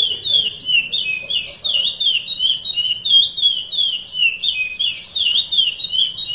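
Male curió (chestnut-bellied seed finch) singing the Paracambi 'rompe nuvem' song: an unbroken run of loud, high whistled notes, each swooping down and back up, about three or four a second.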